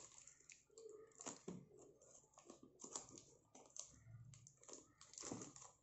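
Faint crinkling and rustling of clear plastic wrap being peeled off a small cardboard box by hand, in scattered short crackles and ticks.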